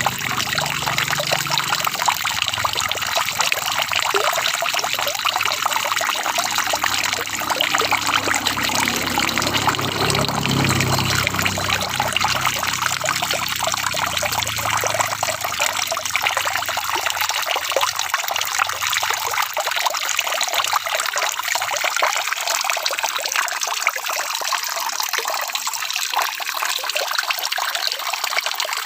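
Steady rain falling, a dense even patter of drops with a trickling, running-water quality. A low rumble underneath fades out about halfway through.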